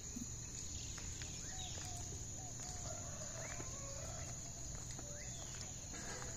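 Birds calling with short chirps and wavering notes over a steady high-pitched insect drone and a low rumble.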